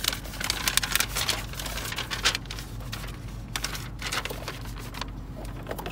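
Paper instruction sheet being unfolded and handled, a run of quick crackles and rustles, over a low steady hum.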